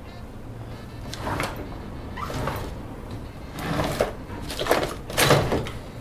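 Foley of objects being rummaged through and handled: a series of five short scraping, clattering movements, the last two loudest.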